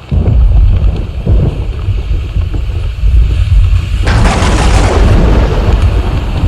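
Thunder sound effect: a heavy low rumble that starts suddenly, with a sharper crackling crash about four seconds in that cuts off after about a second, while the rumble goes on.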